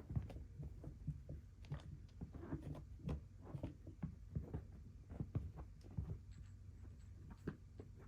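Kitten purring loudly close to the microphone, a low pulsing rumble, while it seeks affection. Scattered soft clicks and taps sound over the purr.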